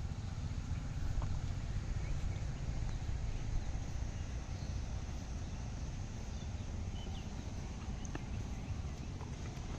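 Outdoor ambience: a steady low rumble with a few faint, short high chirps scattered through.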